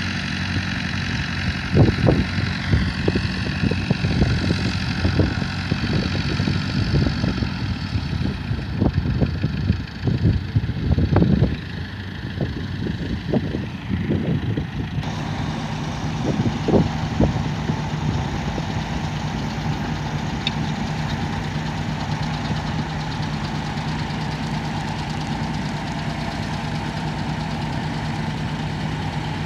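Tractor engine running steadily at a low, even speed, with irregular low thumps through the first half.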